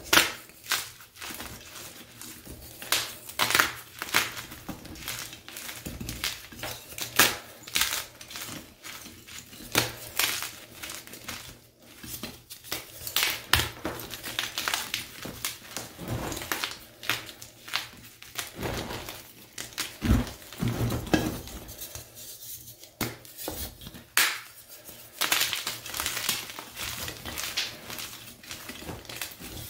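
Blocks of gym chalk crushed and crumbled in the hands over a bed of broken chalk and powder: an irregular run of crunches and crackles, some loud, some soft.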